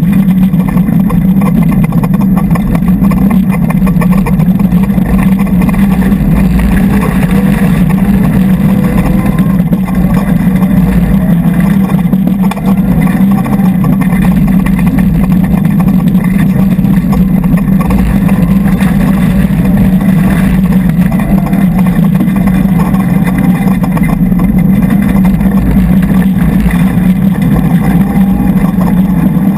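Mitsubishi Lancer Evolution X rally car's turbocharged four-cylinder engine running hard at speed, heard from inside the stripped cabin, loud and steady. Constant tyre and underbody rumble from the gravel road runs under it.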